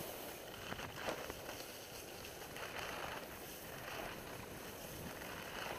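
Skis sliding over packed, groomed snow, hissing in a run of swishes that swell every second or so as the skier turns, with light wind on the microphone.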